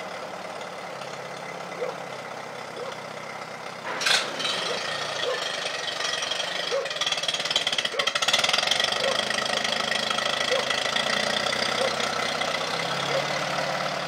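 An engine idling steadily. There is a sharp click about four seconds in, and the sound gets louder about eight seconds in.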